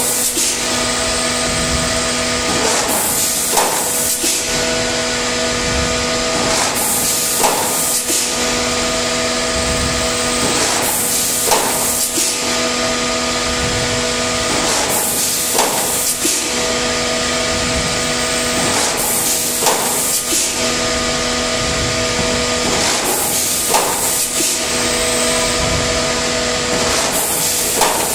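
PP plastic thermoforming machine running through its forming and cutting cycle: a steady mechanical hum, with a knock and a burst of air hiss about every four seconds as each stroke completes.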